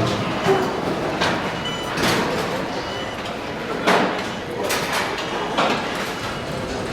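Factory assembly hall ambience: a steady background of activity with voices in it and several sharp knocks and clanks, the loudest about half a second in and about four seconds in.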